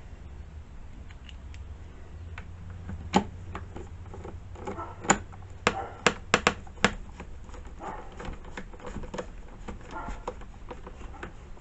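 Irregular sharp clicks and taps of hand tools and small chainsaw parts being handled during reassembly, with a loud cluster about five to seven seconds in, over a low steady hum.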